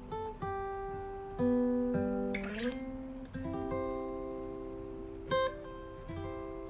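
Slow acoustic guitar music: single notes and chords plucked every second or so and left to ring, with one note sliding up in pitch about halfway through.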